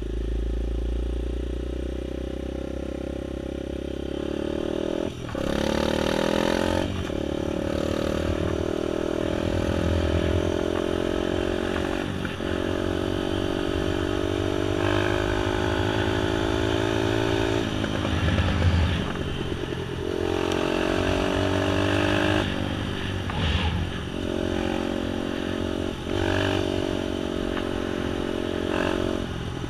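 Engine of a small vehicle riding along a rough woodland road, its pitch climbing and dropping again and again as the throttle opens and the gears change, with rattling and road noise underneath.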